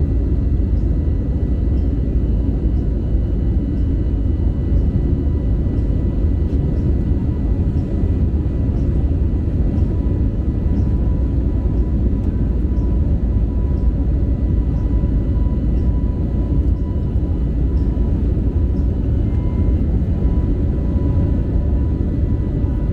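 Airbus A320neo in its climb after takeoff, heard from inside the cabin: a loud, steady, deep rumble of engines and airflow, with a few faint steady tones above it.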